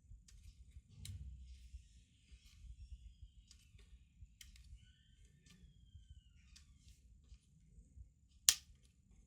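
Faint clicks and taps of laptop parts being handled, with one loud sharp click near the end.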